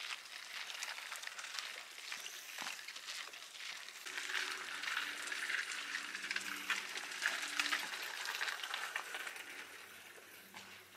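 Footsteps crunching on a gravel trail, a dense crackle of small clicks that grows louder about four seconds in, with a faint low hum underneath from then on.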